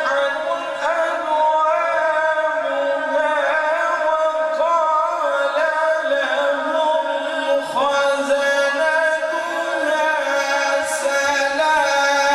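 A man's melodic Quran recitation (tilawat): one long, drawn-out phrase with ornamented turns in the voice.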